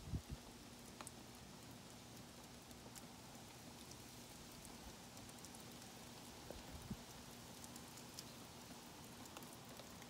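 Near silence: faint steady outdoor hiss with scattered light ticks, and soft thumps just after the start and about seven seconds in.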